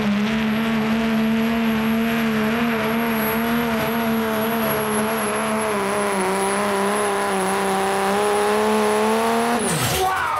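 Turbocharged Ford Super Duty diesel pickup at full throttle pulling a weight-transfer sled: a steady, loud engine note with a high turbo whistle above it, the pitch wavering slightly. About nine and a half seconds in, the throttle comes off and the engine note and turbo whistle drop away quickly.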